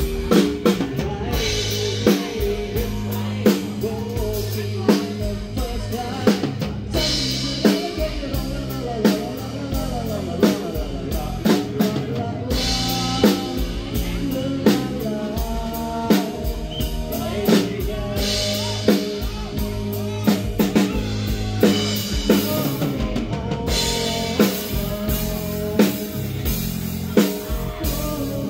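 Live band playing a song: a drum kit keeps a steady beat of kick, snare and rimshots under an electric bass guitar and other instruments.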